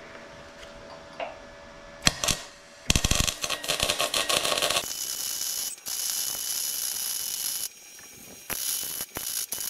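MIG welding arc crackling on steel: a short strike about two seconds in, then a steady crackle for about five seconds, a brief pause, and a few shorter bursts near the end.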